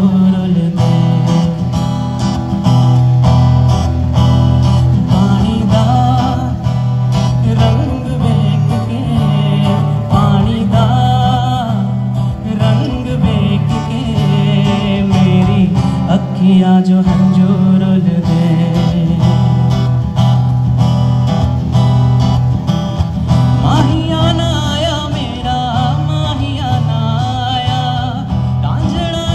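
A man singing to his own acoustic guitar, played live through stage loudspeakers.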